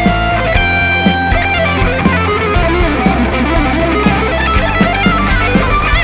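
Electric guitar, a Gibson Les Paul fitted with Tonerider Alnico II humbuckers, playing lead phrases through an amp. Held notes give way to bent and wavering notes.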